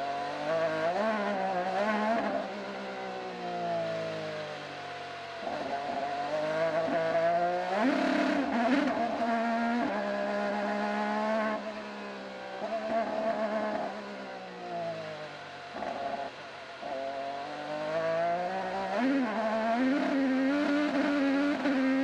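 IndyCar's twin-turbocharged V6 heard from the onboard camera, its pitch climbing under acceleration and dropping each time the throttle is lifted and it downshifts for corners, repeatedly through the lap.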